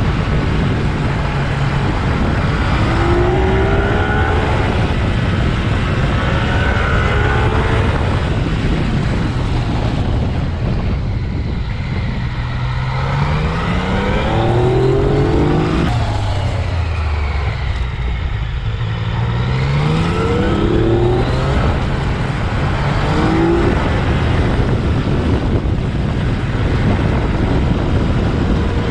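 Yamaha XSR900's three-cylinder engine pulling hard under rider's throttle, its pitch climbing and dropping back several times as it revs up through the gears, over a steady rush of wind and road noise.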